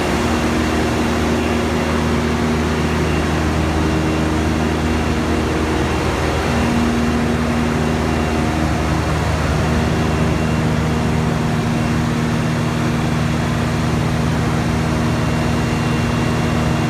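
Caterpillar G3516 V16 natural-gas engine, rated 1055 kW, running steadily under test, a loud, even drone that holds constant speed throughout.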